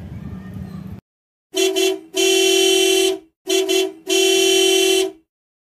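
Car horn sound effect honking in a beep-beeep, beep-beeep pattern at one steady pitch: two pairs of a short honk then a longer one, starting about a second and a half in.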